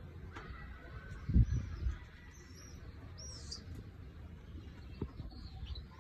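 Cockatiels chirping with scattered short, high calls, and a couple of loud low thumps about a second and a half in.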